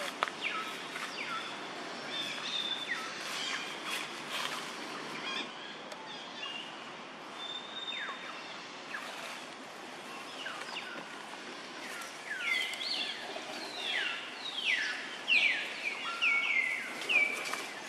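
Short high chirping calls, each falling quickly in pitch, coming more often and louder in the second half, over a steady outdoor hiss. A few sharp clicks sound in the first few seconds.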